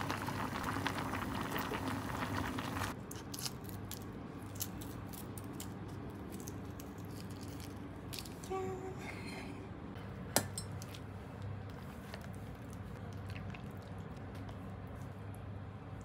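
A pan of tteokbokki bubbling at a boil, which stops suddenly about three seconds in. Light kitchen clinks and handling noises follow, with a brief tone about halfway through and one sharp clack a couple of seconds later.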